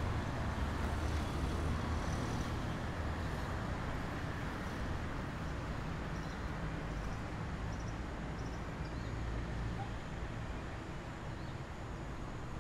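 City street traffic: a steady rumble of cars, with no single vehicle standing out.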